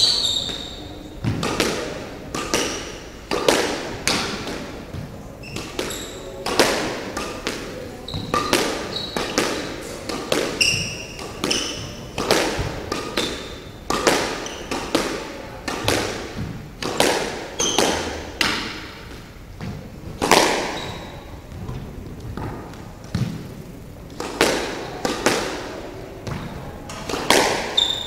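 Squash rally: the ball struck by rackets and smacking against the walls and wooden floor about once a second, each hit ringing briefly in the enclosed court, with short squeaks of shoes on the wooden floor between hits.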